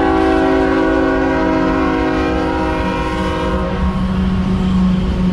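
CSX freight locomotive's multi-chime air horn sounding one long chord that cuts off a little after halfway, followed by the steady low rumble of the diesel locomotive.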